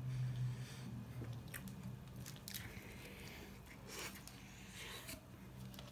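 Faint eating sounds of a person biting into and chewing a grilled French tacos wrap stuffed with meat, with a few short, sharp mouth noises.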